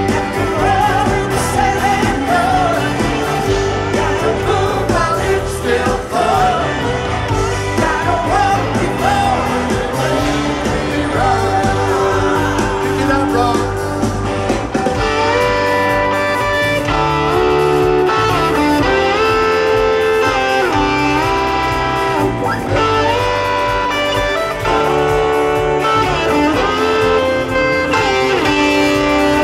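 A rock band playing live through a stadium PA, heard from the crowd: electric guitars, bass and drums with a man singing lead. About halfway through, steady held notes moving in steps come to the fore.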